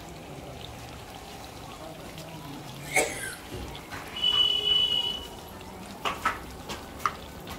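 Pakoras deep-frying in a large iron kadhai of hot oil, with a steady sizzle and bubbling. A sharp click comes partway through, then a high steady tone lasting about a second, and a few more clicks near the end.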